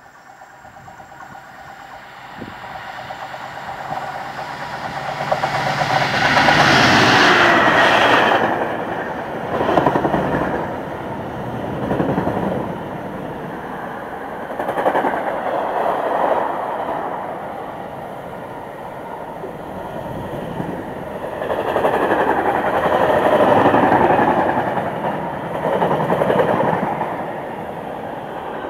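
Freightliner Class 66 diesel locomotive 66957, with its EMD two-stroke V12, approaching and passing at speed, its engine growing louder to a peak about seven seconds in. Then a long train of loaded container wagons rolls by, the wheels clattering over the rails in repeated swells.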